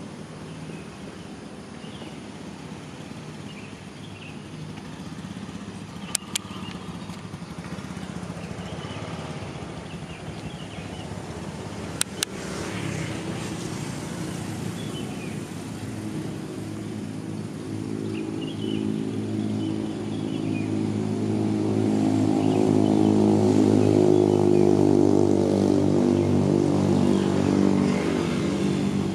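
A motor vehicle engine running at a steady pitch, growing louder as it approaches, loudest about three-quarters of the way through and easing off near the end. A sharp double click sounds about six seconds in and again about twelve seconds in.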